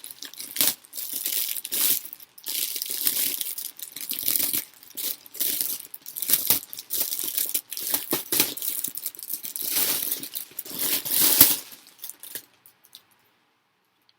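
Plastic bags of building-brick parts being handled, crinkled and torn open in irregular bursts, with sharp clicks mixed in; the sound stops about twelve seconds in.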